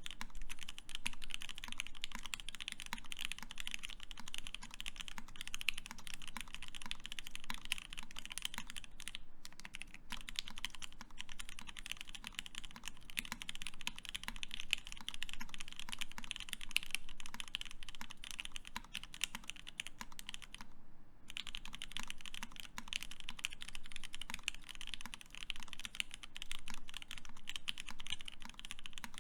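Fast, continuous typing on a Keycult No.1/65 mechanical keyboard with lubed Tealios linear switches in an aluminium plate, a dense stream of key strikes. It breaks off briefly twice, about nine and twenty-one seconds in.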